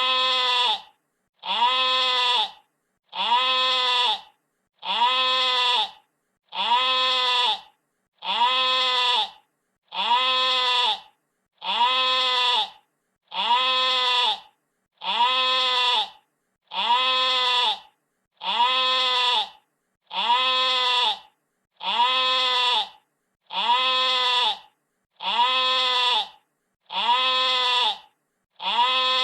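A sheep bleating over and over: one bleat of about a second, rising then falling slightly in pitch, repeated identically roughly every 1.7 seconds.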